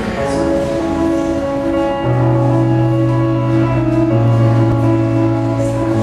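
Slow piano music: sustained chords over held low bass notes, with the harmony shifting about two and four seconds in.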